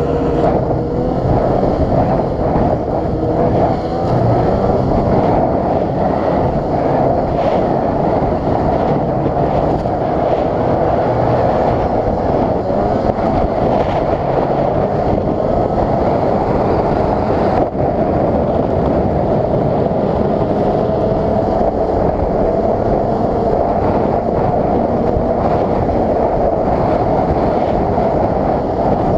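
Snowmobile engine running at speed, its pitch wavering up and down with the throttle, over a steady rushing noise.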